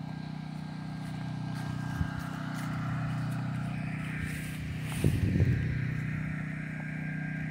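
An engine running steadily in the background, a low even hum. A brief louder sound rises over it about five seconds in.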